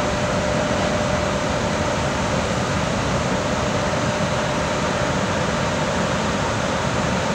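EP1M electric locomotive moving off slowly with a passenger train, its cooling fans blowing steadily with a thin steady whine over the noise.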